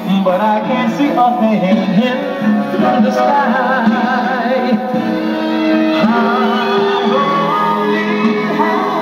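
A vinyl record playing through a 1960s Westinghouse portable record player's tube amplifier and built-in speakers: a song with singing, sounding thin with little bass.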